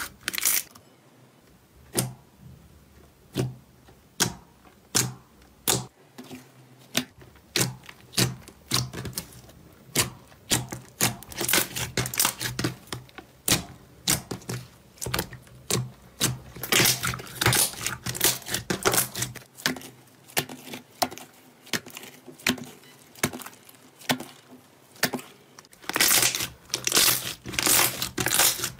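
Pink slime being pressed, pulled and squeezed by hand, giving irregular sticky pops and crackling clicks. The clicks are sparse at first and come thicker and louder toward the end.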